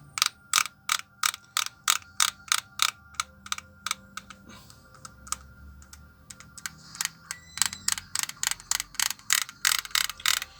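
Freshly greased gearbox and clutch of a cordless drill/driver turned by hand, clicking evenly about three times a second like a ratchet. The clicks pause for a few seconds midway, then start again.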